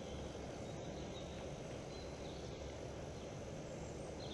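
Steady low background rumble of the woods, with a few faint, brief high bird chirps.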